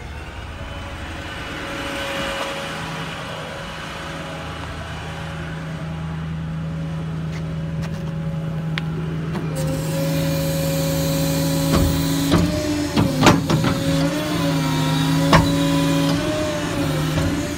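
Ford 6.4 L Power Stroke diesel running with its Chelsea PTO just engaged, driving the crane's hydraulic pump: a steady whine over the engine that rises in pitch right at the start. In the second half a further tone joins in, the pitch wavers, and there are a few sharp clicks.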